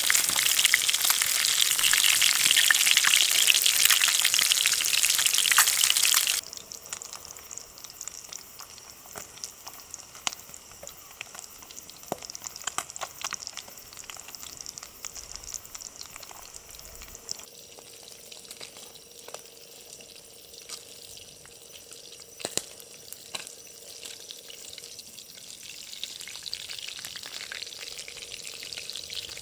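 Food sizzling and frying in a pan, loud for about the first six seconds, then cut off abruptly to a much quieter background with scattered small clicks and ticks.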